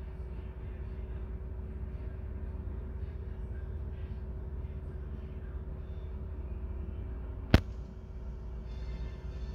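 Steady low rumble and hum of the gas ferry's machinery, heard inside the wheelhouse during slow manoeuvring. A single sharp click about three-quarters of the way through.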